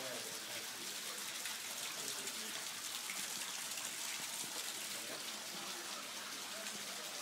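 Running water from a small waterfall splashing steadily into a pool.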